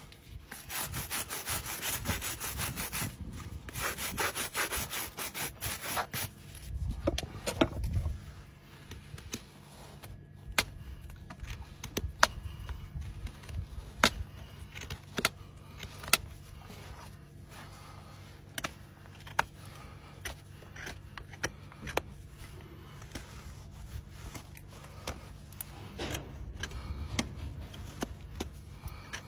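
A stiff brush scrubbing a horse's hoof in fast back-and-forth strokes for the first several seconds, then a hoof knife paring the hoof horn, with sharp separate cuts about once a second.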